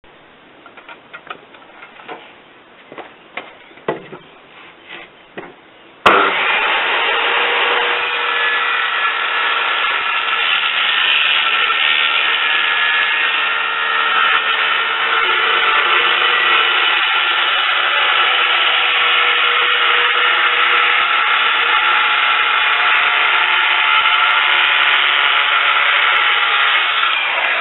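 A few light knocks, then about six seconds in a power tool starts suddenly and runs steadily.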